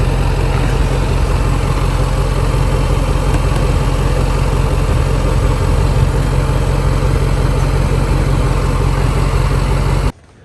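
A vehicle engine, most likely the Range Rover Sport's supercharged V8, running steadily with a strong low drone. It cuts off suddenly near the end.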